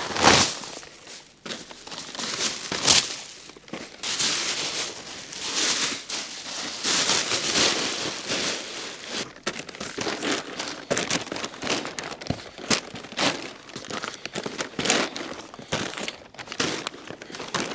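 Empty paper-and-plastic feed bags being handled, with crumpling, crinkling and tearing as the paper is pulled away from the plastic for waste sorting. The rustles and crackles come in irregular bursts throughout.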